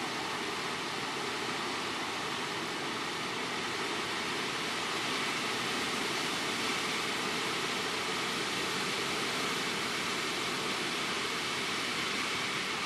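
Hurricane-force wind blowing through tree leaves, a steady dense rushing that swells slightly partway through.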